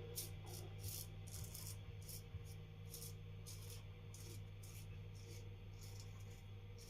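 Parker 65R safety razor scraping through lathered stubble in short, quick strokes, about two to three a second, faint and high-pitched.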